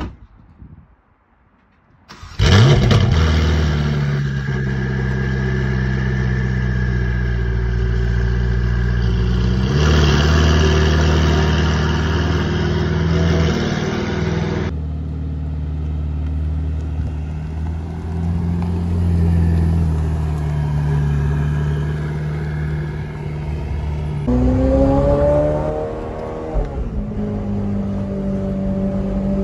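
A car door shuts, then about two seconds later the Ferrari 488 Pista's twin-turbo V8 starts with a sharp flare of revs and settles into a steady high idle, which drops to a lower, quieter idle about halfway through. Near the end the engine rises in pitch once more.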